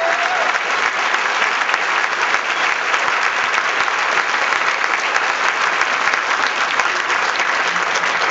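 Audience applauding: a dense, steady clatter of many hands clapping at an even level.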